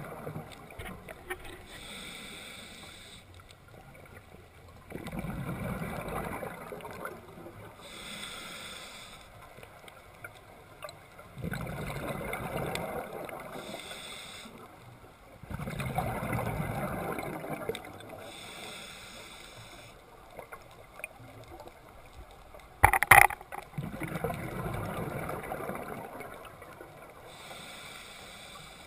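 Scuba diver breathing through a regulator underwater: a short hissing inhale, then a longer spell of bubbling exhaust bubbles, repeating about every six seconds. A single sharp knock about 23 seconds in is the loudest sound.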